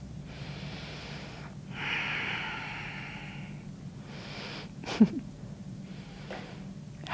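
A woman breathing slowly and audibly through a held yoga pose, with a long breath about two seconds in and a short sharp sound about five seconds in.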